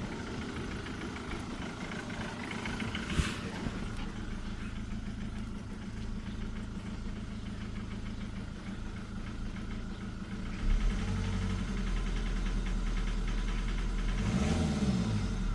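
Jaguar X-Type 2.0d four-cylinder turbodiesel engine idling with a knocking, rattling noise from the driver's side of the engine, cause unknown. A sharp click comes about 3 seconds in, and a deeper hum comes in at about 11 seconds.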